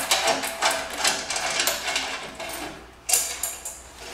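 Hand ratchet wrench clicking in quick, rapid runs as bolts are backed out, with a sharp metallic knock about three seconds in.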